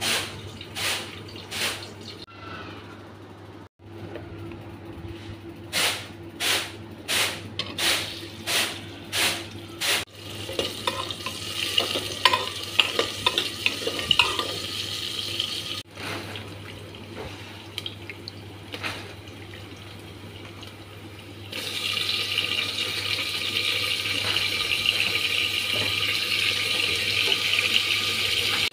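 Boiled mutton pieces frying with sliced onions in oil in a pressure cooker. A run of short, evenly spaced noises over the first ten seconds gives way to mixed clatter, and a steady sizzle sets in about two-thirds of the way through.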